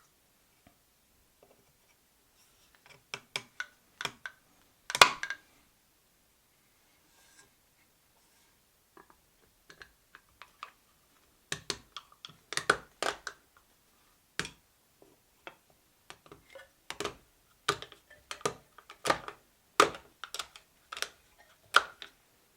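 Irregular sharp taps and knocks of hand-tool work on wood, a few early on with the loudest knock about five seconds in, then a denser run of taps through the second half.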